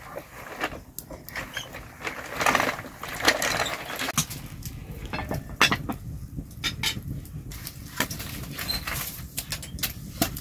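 Wood fire crackling, with irregular sharp pops and clicks, and sticks of firewood knocking as they are pushed under the cooking pot. A couple of short rustling noises a few seconds in.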